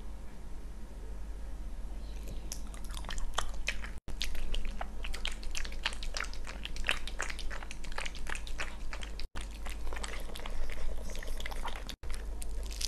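A poodle lapping and chewing thick pumpkin soup, a quick run of wet smacks and clicks starting about two seconds in, cut by a few brief silent gaps.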